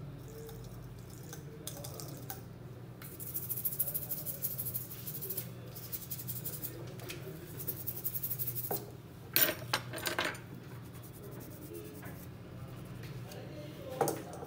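Small metal tools clicking and scraping on a repair bench during phone board rework, in short scratchy spells with a few sharp clicks, over a steady low hum.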